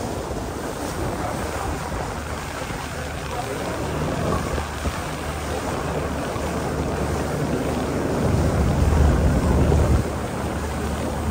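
Wind buffeting the microphone on a Seine river cruise boat, over the boat's steady low engine hum, growing louder about eight seconds in.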